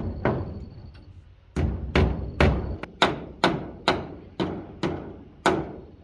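About ten heavy knocks, like hammer blows, each a sharp crack with a deep thud that dies away quickly. They come at about two a second after a pause of about a second following the first.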